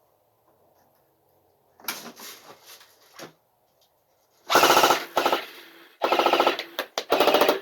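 A&K M249 Mk1 electric airsoft machine gun firing three full-auto bursts of rapid, evenly spaced shots, each lasting under a second, starting past the middle. Fainter clatter comes a couple of seconds in.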